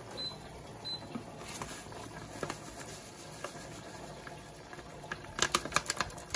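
Saucepan of vegetables boiling with a steady low bubbling hiss. Near the end comes a quick run of sharp crackles as granulated curry is poured from its paper pouch into the pot.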